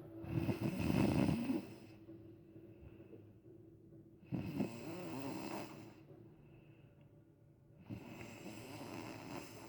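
Snoring in deep sleep: three rasping snores, each about one and a half to two seconds long, coming about every three and a half to four seconds. The first snore is the loudest.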